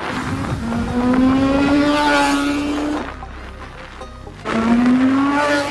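Sport motorcycle engine accelerating, its pitch rising. The throttle eases off about three seconds in, and the engine pulls and climbs again shortly before the end. A steady rush of wind sits under it.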